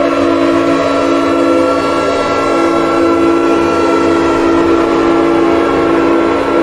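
Outdoor warning siren sounding a loud, steady chord-like tone, its pitch holding level at full speed.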